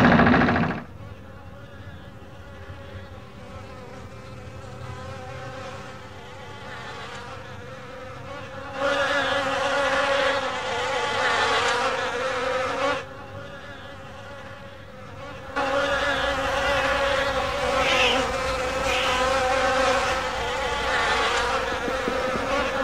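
A fly buzzing steadily, growing louder for a few seconds from about nine seconds in, dropping back, then louder again from about fifteen seconds on, as if flying close. A loud low rumble cuts off about a second in.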